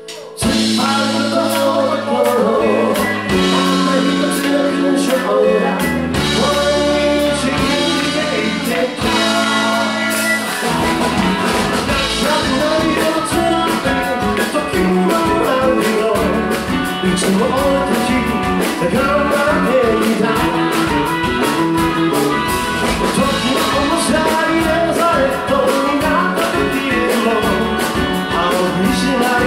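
A live rock band with electric guitar, electric bass and drum kit plays a song with a voice singing. For about the first ten seconds the band holds long chords with a few drum hits. Then the drums break into a steady driving beat under the guitar and the singing.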